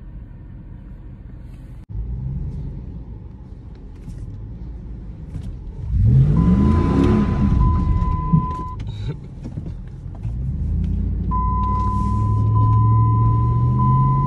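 Dodge Ram 1500's 5.7-litre V8 heard from inside the cab. It revs up and drops back about six seconds in, then pulls with rising pitch under acceleration, easing off near the end. A steady high-pitched tone sounds over it twice.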